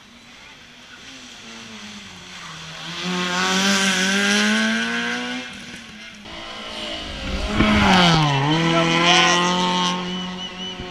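Hillclimb race car engine at high revs, getting louder about three seconds in as its pitch climbs and falls through the gears. It eases briefly, then comes back loud with a sharp drop in pitch about eight seconds in.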